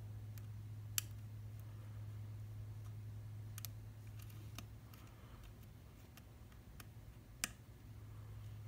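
Small sharp clicks of a thin lock pick working the pin stack of an Abus C73 padlock through its warding: scattered faint ticks, with two sharper clicks about a second in and near the end, over a steady low hum.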